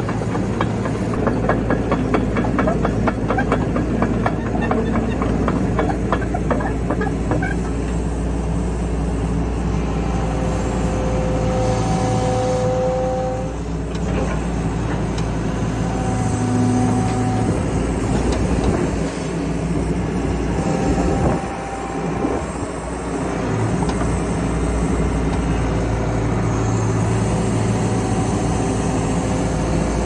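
Tracked excavator's diesel engine running steadily while the machine travels carrying a log, its steel tracks clattering with rapid, even clicks over the first several seconds. Brief whines from the hydraulics come and go around the middle as the boom moves.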